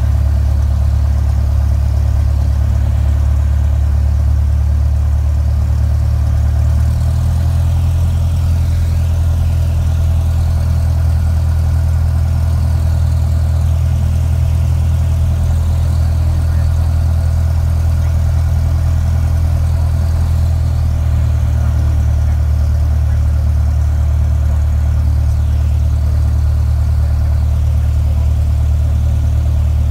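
Cessna 182's piston engine and propeller at low taxi power, heard inside the cabin as a loud, steady low drone. The engine note steps up slightly about seven seconds in and settles back down about twenty-one seconds in.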